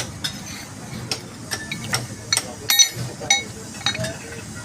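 Irregular metallic clinks and taps, metal striking metal with short ringing after some strikes, over a low steady hum.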